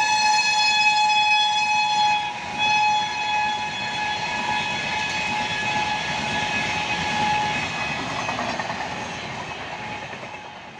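An electric locomotive's horn, held as a fast passenger train passes, with a brief break about two seconds in, over the rushing clatter of the coaches on the rails. The horn stops about seven and a half seconds in, leaving the coaches' rumble, which fades out near the end.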